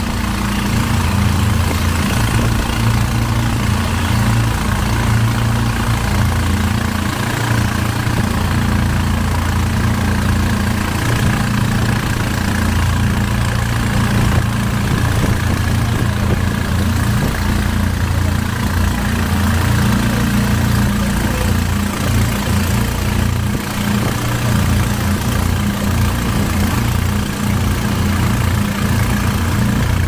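An engine running steadily at an even speed, with no revving or change in pace.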